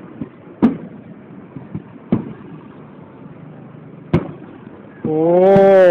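Aerial firework shells bursting: three sharp bangs about one and a half to two seconds apart, with fainter pops between. Near the end a person's voice lets out a loud, drawn-out exclamation of excitement that rises and falls in pitch.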